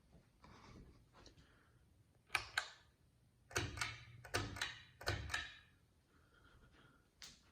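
Sharp clicks and knocks: two quick clicks, then three clusters of clicks with dull thumps about a second and a half later, over a faint steady low hum.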